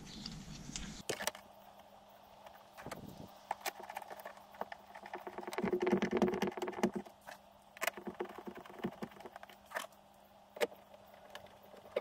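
Scattered sharp plastic clicks and knocks as a VW T4 door pull handle is pressed and clipped onto the plastic door card, with a denser stretch of rubbing and clicking about six seconds in.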